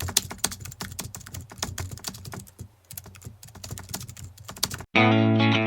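A rapid, irregular run of sharp clicks, like typing on a keyboard, then loud music starting abruptly near the end.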